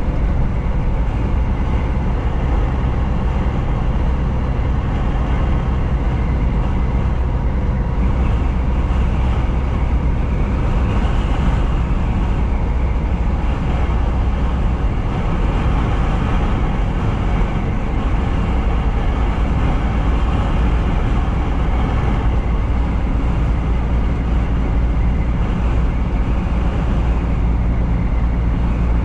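Semi-truck driving at a steady speed: a steady low diesel engine drone with road and tyre noise.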